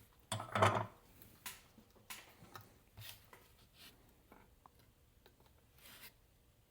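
Light scraping and clicking as a desoldered capacitor is worked loose from a circuit board, with a louder thump about half a second in.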